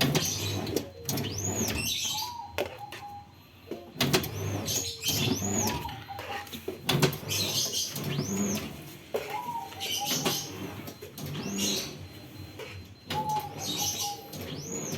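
Semi-automatic cup screen-printing machine working through its print cycles: sharp clacks, a short whine and high chirping squeaks repeat every few seconds.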